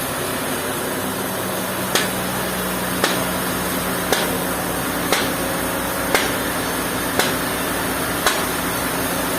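Sawmill machinery running steadily with a low hum, while seven sharp knocks come at an even pace, about one a second, starting about two seconds in.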